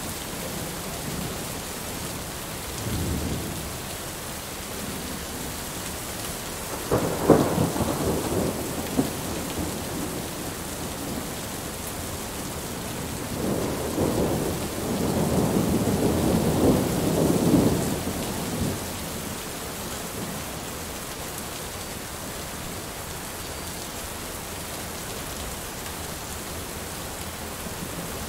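Heavy rain falling steadily, with thunder. There is a short low rumble a few seconds in, then a sharp crack about seven seconds in that rolls on for a couple of seconds and is the loudest sound. A longer rolling rumble of about five seconds follows around the middle.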